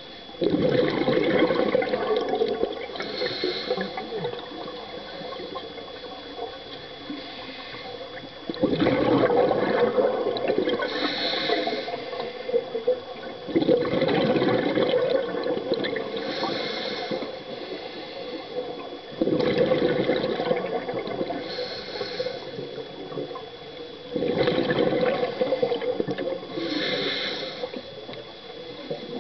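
Scuba diver breathing underwater through a regulator: five breaths about every five seconds, each a rushing burst of exhaled bubbles lasting a few seconds, followed by a short hiss of inhalation through the regulator.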